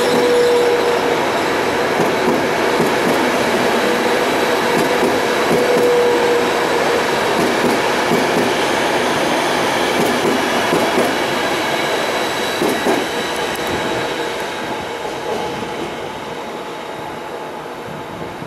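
Intercity passenger coaches rolling past on the rails as the train pulls out, the wheels clattering over the track. The sound fades steadily over the last few seconds as the end of the train moves away.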